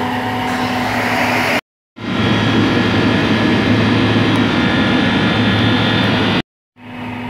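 A power tool's motor running steadily as a long steel bit works down a round hole in a concrete floor: a steady low hum under dense rough noise. The sound drops out twice for a moment.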